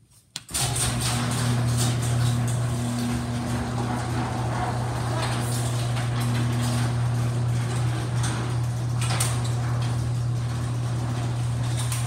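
A click from the wall push button, then a LiftMaster garage door opener running steadily with a low hum as it lowers a metal sectional garage door.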